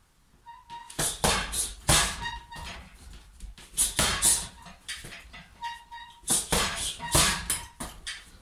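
Punches landing on a hanging heavy bag in irregular flurries of two or three hits, with short high squeaks in between.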